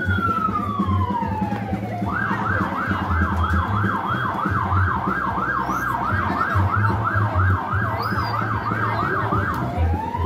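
Emergency-vehicle siren sounding a slow falling wail, switching about two seconds in to a fast yelp of about three up-and-down sweeps a second, then going back to a slow rising wail near the end. A low rumble runs underneath.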